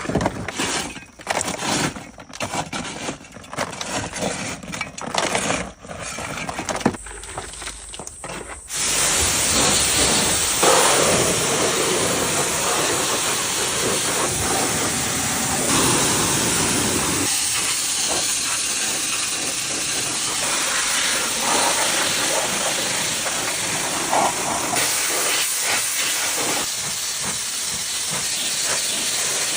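A high-pressure water jet from a pressure washer hissing steadily, starting about nine seconds in after several seconds of uneven short bursts and knocks.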